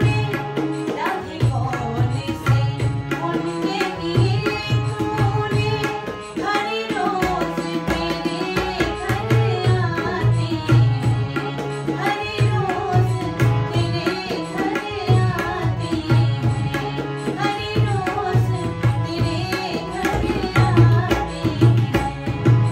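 A woman singing a Krishna bhajan to harmonium and tabla. The tabla keeps a steady rhythmic accompaniment, with deep strokes on the bass drum, under the sung melody and the harmonium's held notes.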